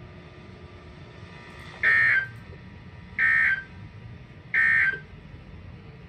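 Three short high electronic bleeps from a weather alert radio, each under half a second and about a second apart: the Emergency Alert System end-of-message data bursts that close a warning broadcast.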